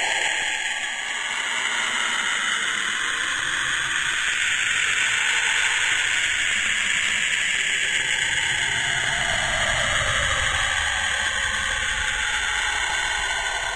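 Saturn's radio emissions, as picked up by the Cassini spacecraft and converted to sound: a steady hissing wash with slowly drifting bands of pitch. In the second half one band glides slowly downward while a low rumble swells.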